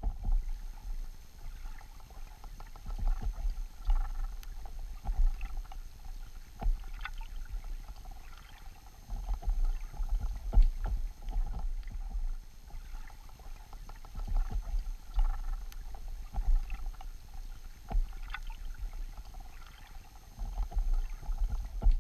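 Underwater ambience picked up by a camera on the seabed: uneven low rumbling surges of moving water, with scattered sharp clicks and a faint steady hum.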